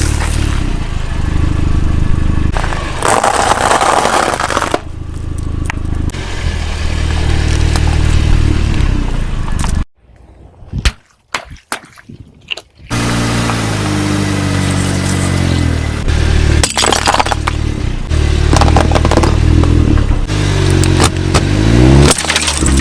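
Car engine running and revving, with cracking and crunching as objects are crushed under the tyres. A nearly silent break of a few seconds comes about ten seconds in.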